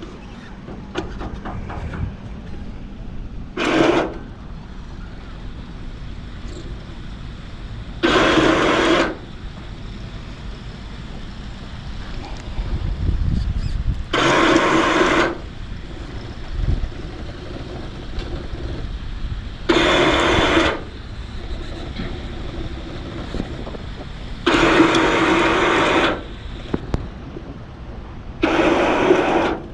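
A powered winch running the in-mast mainsail furler in six short bursts of about a second each, stopping and starting while the mainsail is let out, with wind noise between the bursts.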